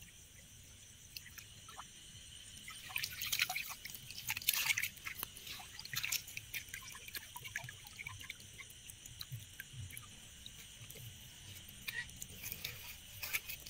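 Water splashing and dripping as a hand scoop net is swept and lifted through shallow pond water. The splashes bunch together from about two and a half to seven seconds in, with smaller splashes and drips after that.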